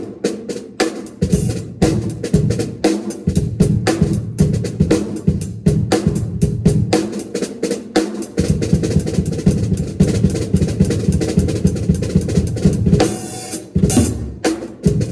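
Drum kit played in a fast, busy pattern of bass drum, snare and cymbals, with many strokes a second and a bright cymbal wash near the end.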